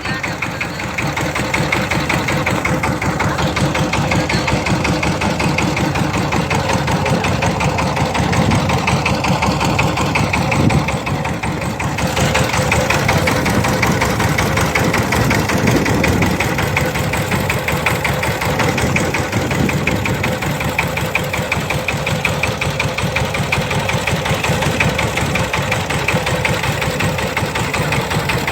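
A motorboat engine running steadily, with a fast even chugging throughout.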